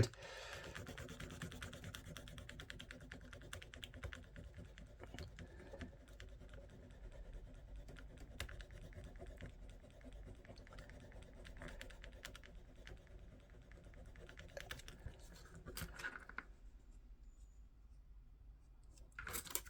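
Small hand file rasping against a raised logo on a toy figure's body, a quick run of fine scratchy strokes as the logo is rubbed down flat, stopping about sixteen seconds in.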